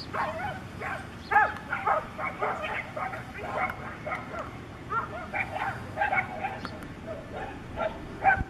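A pack of dogs fighting, with rapid overlapping barks and yelps and some longer whining calls from about six seconds in.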